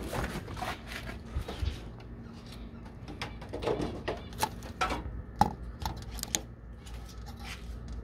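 Irregular light clicks and knocks of handling around wire-mesh pigeon cages, over a faint low steady hum.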